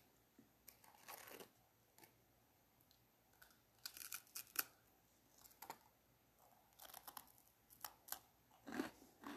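Close-up eating sounds: biting into and crunching a crisp snack, short crackly crunches in clusters, loudest about four seconds in and again near the end.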